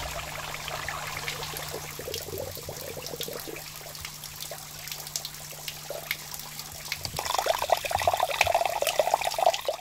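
Spring water trickling from a pipe spout and splashing onto rock and into a shallow pool, with a faint steady low hum beneath. The splashing grows louder and busier about seven seconds in.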